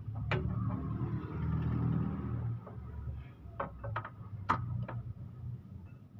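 A low engine rumble that weakens about two and a half seconds in, with several sharp metallic clicks from work on a car's front suspension.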